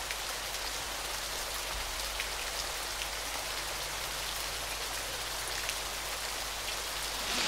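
Steady hiss and patter of falling water splashing onto rock, like heavy rain, with a few faint separate drips standing out.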